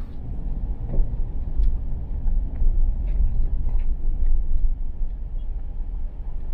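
Low, steady rumble of a motor vehicle on the move, with a few faint clicks and rattles.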